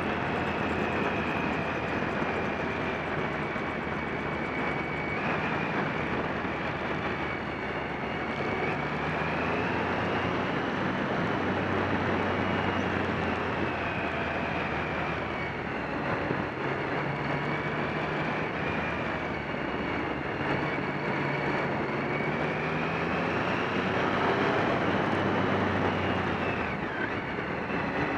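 Motorcycle engine running at road speed, heard from the bike being ridden, mixed with steady wind rush on the microphone. The engine note rises and falls with the throttle through the bends and climbs as it revs up near the end.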